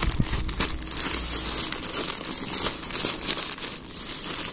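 Plastic courier bag crinkling and rustling as hands pull it open and handle the plastic-wrapped bedsheet pack inside, a continuous crackle of many small clicks.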